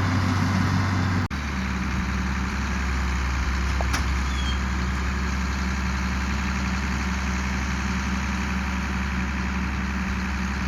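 Tractor engine running steadily at a low, even speed. About a second in, the sound cuts abruptly and comes back at a lower pitch, then holds steady.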